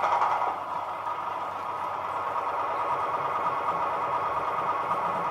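Recorded sound of a diesel locomotive's auxiliary diesel engine running steadily, played as a sound-decoder function through the small loudspeaker of a Trix H0 V140 model. It is a little louder in the first half second, then runs evenly with a fine, fast pulse.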